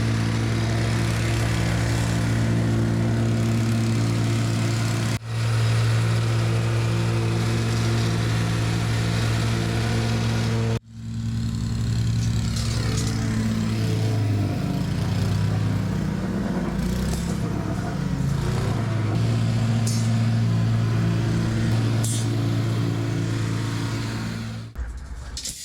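Skid steer engine running steadily, with its pitch wavering and shifting for a few seconds as it works under load. The sound cuts off sharply twice, about five and eleven seconds in.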